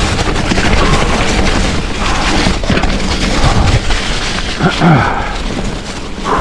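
Loud, steady rumbling rush of wind buffeting the camera microphone.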